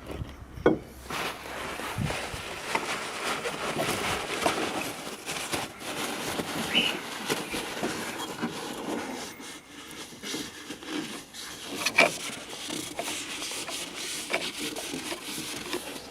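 Handling noise from work on the fuel filter and its housing: continuous rubbing and scraping, with small clicks throughout and two sharp clicks, one about a second in and one about twelve seconds in.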